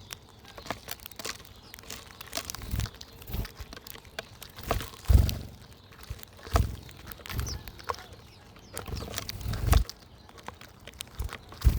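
Wild birds at a backyard feeder: scattered small clicks and scrabbling as they land, flutter and peck, with several dull thumps.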